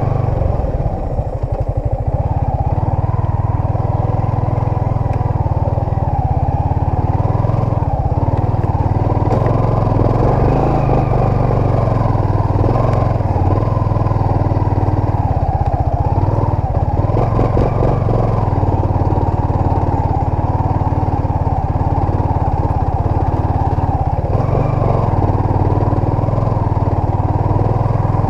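Yamaha Sniper 155 underbone motorcycle's single-cylinder four-stroke engine running steadily while it is ridden over a rough dirt trail, with a few short knocks about halfway through.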